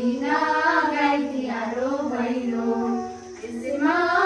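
A group of girls and young women singing together, a Bhailo blessing song of the Tihar festival, with a short pause about three seconds in.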